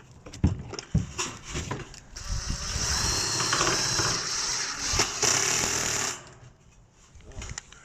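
A few sharp knocks, then a handheld power tool runs steadily for about four seconds and stops suddenly.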